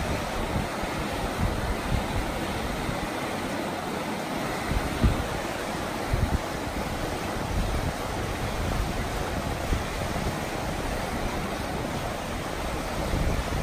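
Whitewater river rapids rushing steadily, a constant wash of water noise, with short low thumps of wind buffeting the microphone now and then.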